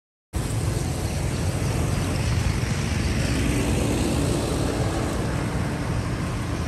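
Steady road-traffic noise on a town street, with a deep rumble. It starts suddenly out of silence about a third of a second in.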